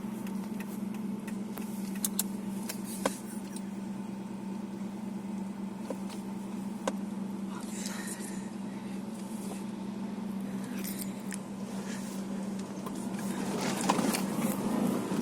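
Subaru Impreza 1.6 flat-four engine running with a steady drone and a few scattered sharp clicks, getting louder near the end. The car has a misfire that shakes it in first and second gear, which new spark plugs, coils and plug leads have not cured.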